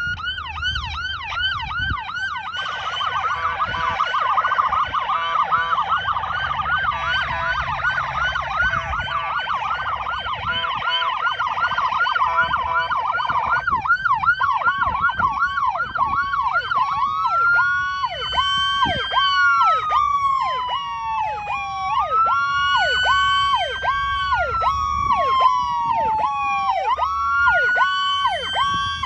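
Electronic sirens on a Ford F-450 brush truck, first a fast yelp with a second rapid siren pattern layered over it, switching about halfway to a rapid pulsing tone combined with a slow wail that rises and falls about every five seconds. A low vehicle rumble runs underneath.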